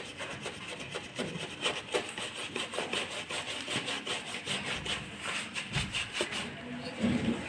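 Stiff antiquing brush scrubbing chalk wax into a painted MDF panel: rapid, repeated scratchy bristle strokes.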